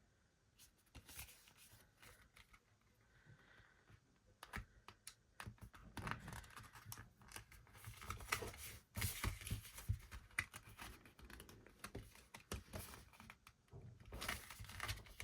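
An album's packaging being opened by hand: rapid small crackles, tearing and scratching of the plastic wrap and card, sparse at first and busier from about four seconds in.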